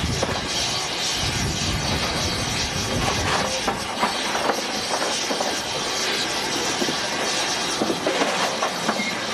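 Andrew Barclay industrial tank steam locomotive running along the line, heard from its footplate: steady steam hiss and running noise, with the wheels clicking over the track.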